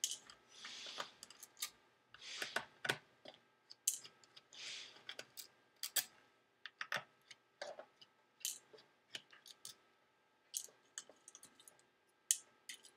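A 00 Phillips screwdriver backing long screws out of a MacBook Pro's aluminium bottom case: short scratchy turning sounds and many small sharp clicks of metal on metal as the screws are worked loose and lifted out.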